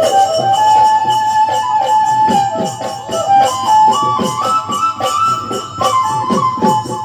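Bihu folk music: a flute-like wind instrument holding a melody that steps upward through the middle and drops back later, over quick, steady drum strokes.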